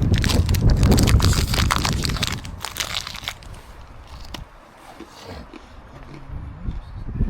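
Dense crunching and crackling for the first two and a half seconds, then dying away to faint sounds, with a single sharp click about four and a half seconds in.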